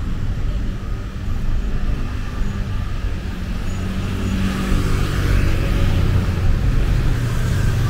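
Street traffic with a car engine running close by, louder in the second half.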